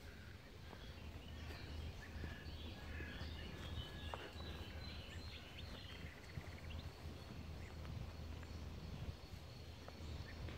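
Small birds singing and chirping intermittently, busiest in the middle, over a steady low rumble.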